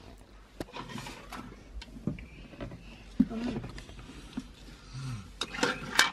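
Light knocks and handling noises from a child playing with toys, with a few brief soft vocal sounds and a louder rustle near the end.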